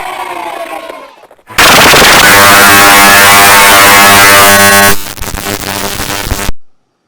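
Heavily distorted, clipped kids-cheering sound effect mixed with other effects in a logo edit. A fading tail gives way to a sudden, deafening blast about a second and a half in that holds for about three seconds, drops back, then cuts off near the end.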